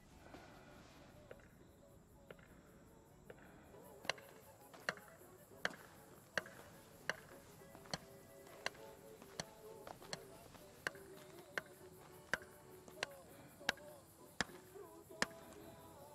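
Quiet film score with held, wavering tones. A sharp click repeats evenly about every three-quarters of a second, starting about four seconds in.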